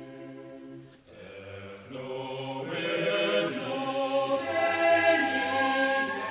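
Choral chanting: several voices holding long, sustained notes in harmony, moving to new notes every second or so and growing louder about two seconds in.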